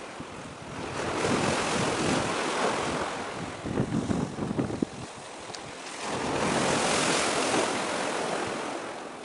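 Wind buffeting the microphone over the sound of waves washing on the shore: a steady rushing noise that swells twice, with choppy gusts in between.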